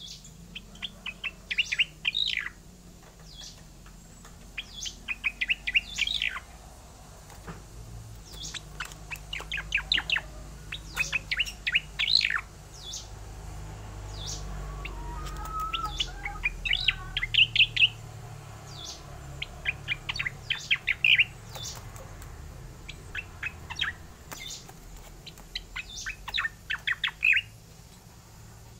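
Cica koreng (striated grassbird) singing: short phrases of quick, high chirping notes, one every second or two.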